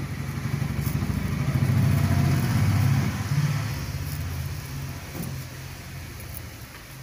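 A motor vehicle engine passing by: a low, steady engine hum that grows louder to a peak about two to three seconds in, then fades away.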